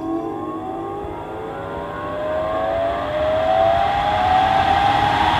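Salvaged tumble-dryer blower motor and centrifugal fan spinning up on its first test run: a whine rising steadily in pitch over a growing rush of air, getting louder as it gains speed.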